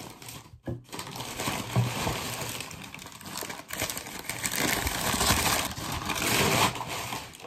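Brown kraft packing paper crumpling and rustling as a package is handled and unwrapped by hand, heavier in the second half.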